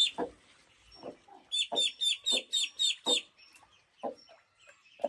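Ducklings peeping shrilly in a rapid run of about four calls a second, the distress calling of ducklings separated from their hen, with a hen's low clucks in between.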